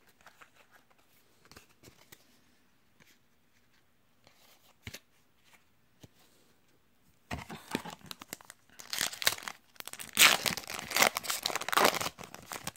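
A Yu-Gi-Oh! booster pack's foil wrapper being torn open and crinkled, with loud crackling starting about seven seconds in. Before that there are only a few faint clicks of cards being handled.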